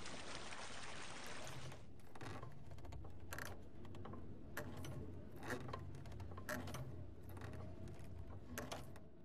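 Faint steady low hum with a hiss for the first two seconds, then scattered short clicks and swishes.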